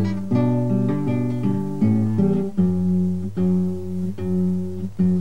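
Background music: an acoustic guitar playing plucked notes and chords at an unhurried pace, with no singing.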